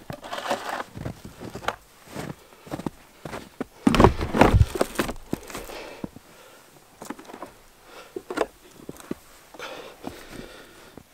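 Crunching footsteps in snow and close-up rustling of clothing and handling bumps against the microphone, loudest about four seconds in.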